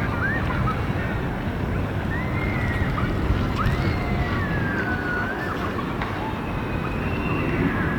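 Steady outdoor rumble with wind on the microphone, and a few thin, wavering whistles laid over it.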